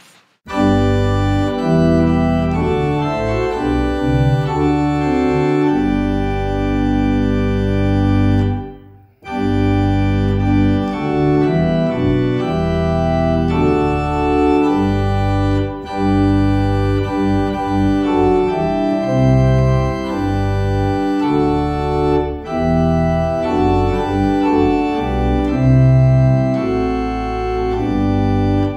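Organ music: sustained chords over a held bass line, with a brief break about nine seconds in.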